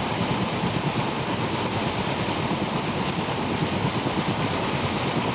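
Mi-8 helicopter's twin turboshaft engines running at close range: a steady high turbine whine over dense, fluttering noise from the rotor and exhaust.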